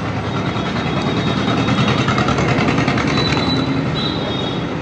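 Steady street traffic noise: vehicle engines running, with faint high horn-like tones now and then.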